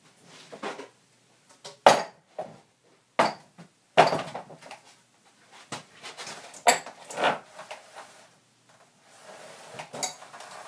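A series of sharp wooden knocks and clatters as peeled logs are handled and one is laid across the support. The loudest hits come about two, three, four and seven seconds in, with lighter rattling between them.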